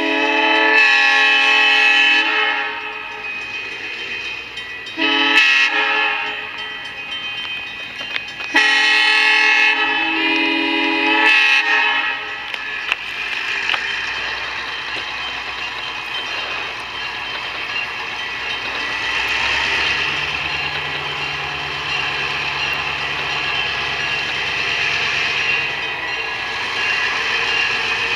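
Diesel locomotive air horn sounding four blasts at a level crossing: long, short, long, long. After that comes the steady running of the locomotive's diesel engine and the rolling train as it comes slowly closer.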